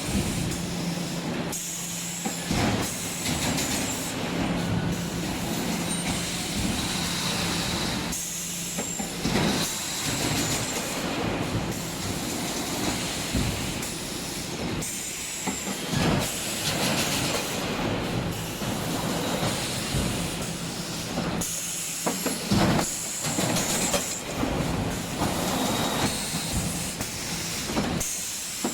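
Wire mesh welding machine running: a steady mechanical clatter with irregular clanks and knocks, and a low hum that drops out and returns partway through.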